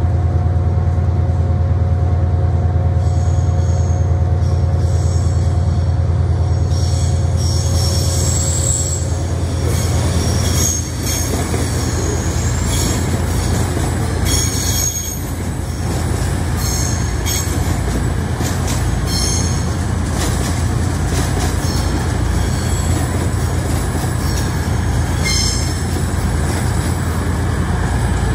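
A CrossCountry diesel train running slowly past on curved track over a steady low drone. Its wheels squeal in repeated high screeches from about three seconds in.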